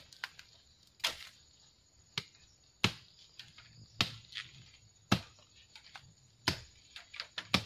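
A blade hacking at bamboo: about seven sharp chopping strikes, roughly one a second.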